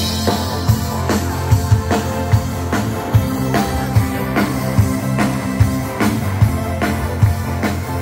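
Live rock band playing an instrumental passage through a PA: a drum kit keeping a steady beat under bass, electric guitar and keyboards.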